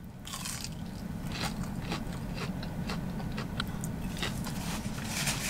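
A person chewing a mouthful of mozzarella stick, with scattered small clicks.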